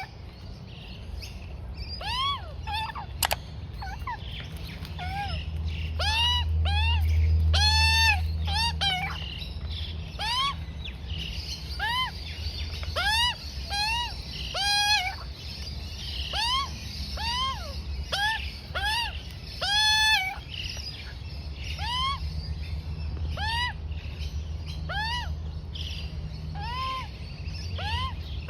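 Juvenile Australian magpie giving repeated begging calls while being fed: short squawks that rise and fall in pitch, about one or two a second. A low rumble comes and goes underneath.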